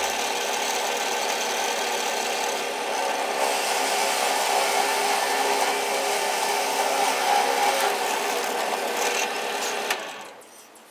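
Drill press running with its bit cutting into cedar to hollow out a recess: a steady motor hum under the rasp of the bit chewing wood. The sound falls away near the end.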